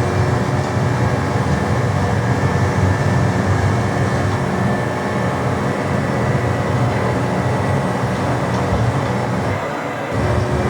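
Steady, loud rumble of a DC-10's three jet engines and airframe during takeoff, with a few steady tones above it; it dips briefly near the end and comes back.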